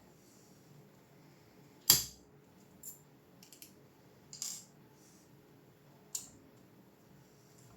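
Several sharp clicks and light taps of small hard objects being handled and set down, the loudest about two seconds in, the others spread over the next few seconds.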